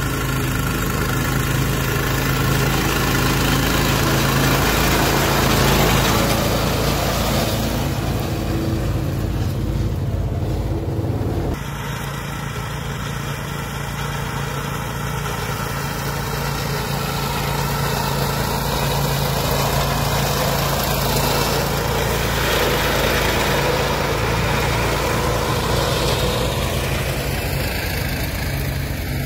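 An ATV and its front-mounted flail mower running steadily, with the mower's own Honda GX340 single-cylinder petrol engine spinning the flail rotor through tall grass. The sound changes abruptly and drops a little about 11 seconds in.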